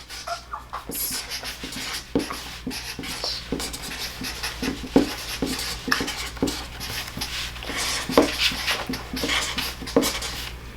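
Writing sounds: short irregular scratching strokes and small taps of someone writing an answer down, over a steady low hum.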